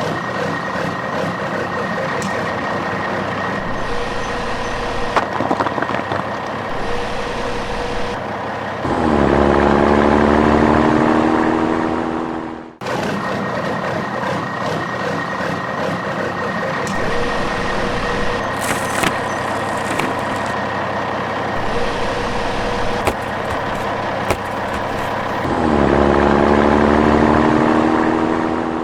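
Heavy truck engine sound effect running steadily, then revving up with a rising pitch about nine seconds in and again near the end. The same stretch of sound repeats, with a brief cut-out between the two passes.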